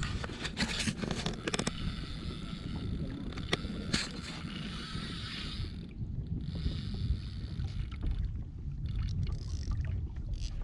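Wind rumbling on the microphone while choppy water splashes and slaps against a Hobie Compass kayak's hull. The splashing is heaviest over the first six seconds, eases, and picks up again near the end.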